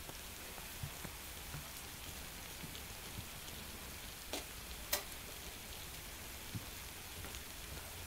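Water boiling in a folded paper takeout carton over a small Fancy Feast alcohol stove: a steady bubbling hiss, with two sharp pops about four and five seconds in.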